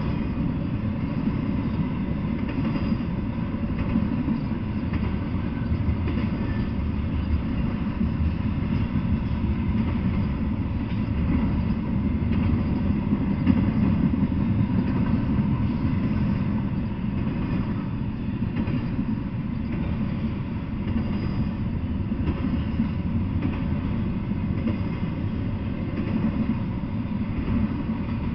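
Double-stack intermodal freight train rolling past, its well cars making a steady low rumble on the rails.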